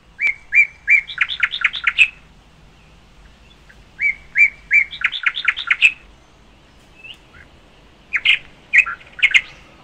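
A songbird singing: two phrases of about two seconds each, every phrase a few separate notes running into a fast series of repeated notes, then a shorter broken burst of notes near the end.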